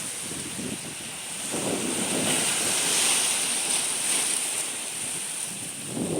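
Wind rushing over the microphone. It swells about a second and a half in and eases off again past the middle.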